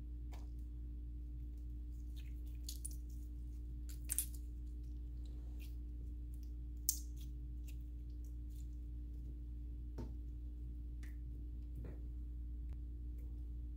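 Clear jelly slime being stretched and squeezed by hand, giving scattered small clicks and pops, the sharpest about four and seven seconds in, over a steady low hum.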